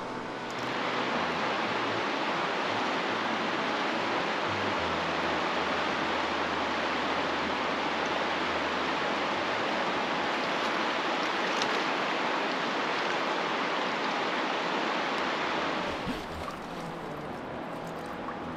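Steady rush of fast-flowing river current. It is loud from about a second in and falls away abruptly near the end.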